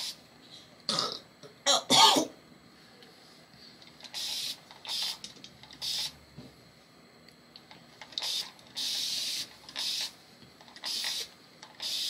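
Fine-mist pump spray bottle misting clove water onto hair: about eight short hisses, a few seconds apart, with one longer spray in the middle. About one and two seconds in there are two louder, short throat sounds.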